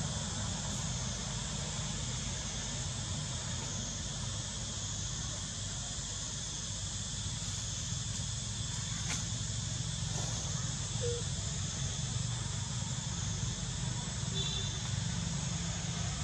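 Steady drone of insects in surrounding forest with a low rumble underneath. Two faint short tones, about eleven seconds in and again about fourteen seconds in.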